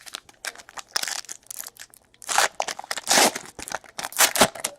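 Trading-card pack wrapper being torn open and crinkled by hand: a run of irregular crackling rips and rustles, loudest in the second half.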